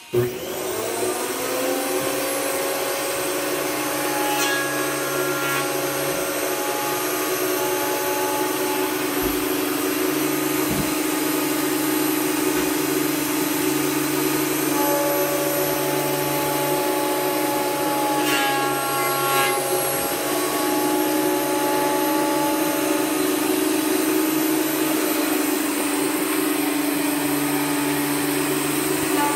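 Benchtop thickness planer switched on: its motor and cutterhead spin up within about a second, then run steadily with a high whine.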